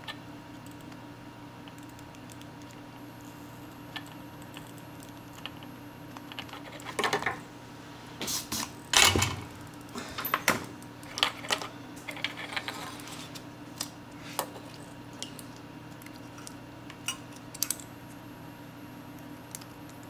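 Scattered small clicks, taps and light clatter of needle-nose pliers and a third-hand clamp against a small circuit board, as a desoldered mouse microswitch is rocked loose. The clicks come in irregular clusters, mostly from about seven seconds in, the loudest near nine seconds, over a faint steady hum.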